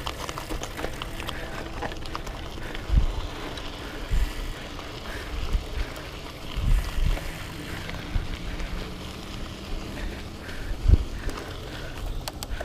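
Hardtail mountain bike rolling over loose gravel and dirt: a steady tyre rumble with small rattles and clicks from the bike, broken by several short low thumps.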